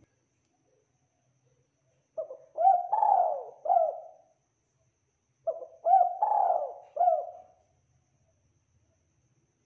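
Spotted dove cooing: two phrases, each a run of a few coos lasting about two seconds, the second starting about three and a half seconds after the first.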